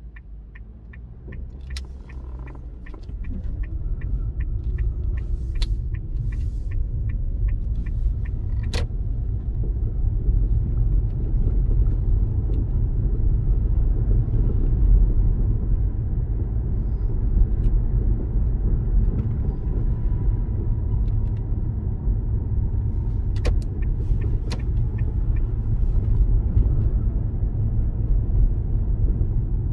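Car turn indicator ticking at about three clicks a second, stopping about nine seconds in. Under it, the car's engine and tyre rumble inside the cabin rises as the car pulls away, then runs steadily while driving along.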